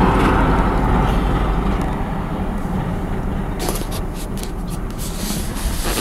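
Semi truck passing on the highway, its engine and tyre noise fading away over the first two seconds. Later a series of sharp clicks and rustles follows from handling the recording device.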